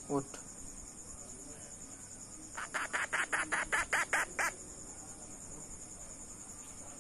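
Parrot chick calling: one short falling squawk right at the start, then about two and a half seconds in a rapid run of about ten harsh chirps lasting some two seconds.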